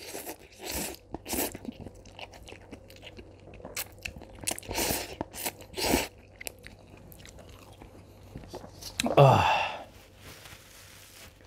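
Close-miked eating of spicy instant ramen noodles: irregular slurps and chewing, with a short voiced exclamation falling in pitch about nine seconds in.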